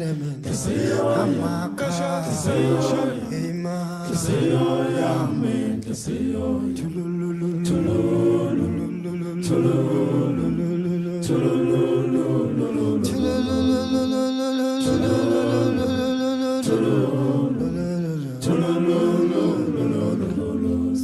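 Background music: a cappella vocal chanting, with several voices singing a repeated melody.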